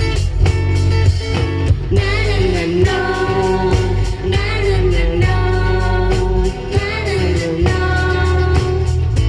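A Thai pop song with singing: a voice holds long notes with vibrato over a steady beat and backing band.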